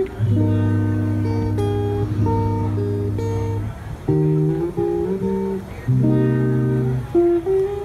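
Plucked string instrument, acoustic guitar-like, playing sustained chords over a steady bass note, the chords changing every second or two.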